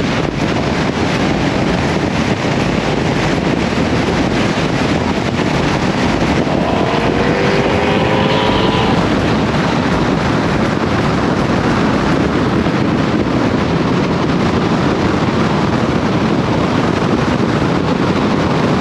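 Heavy wind rushing over the microphone with road noise from a vehicle moving at freeway speed. About seven seconds in, an engine note briefly rises in pitch as a car accelerates.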